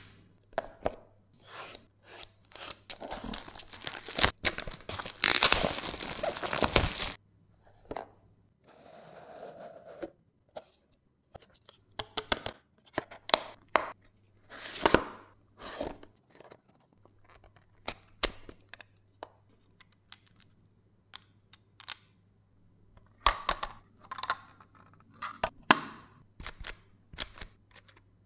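Cube packaging being opened: starting about two seconds in, some five seconds of loud tearing and crinkling, then scattered sharp clicks and taps as the box and its inner compartment are handled and the GAN 14 Maglev Pro speedcube is picked up and turned.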